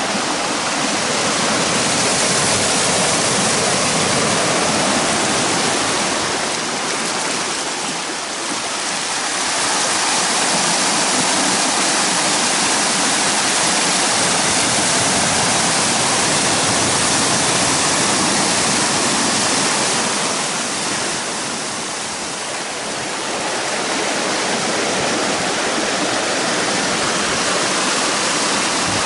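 Ocean surf washing over a rocky shoreline and into a small cove: a loud, steady rush of white water that eases briefly twice, about eight seconds in and again a little past twenty seconds, as the waves draw back.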